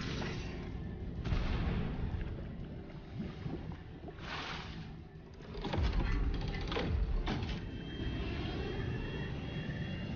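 Sound-design effects from a military title sequence: a heavy low rumble with several swelling whooshes and sharp mechanical clanks, over background music.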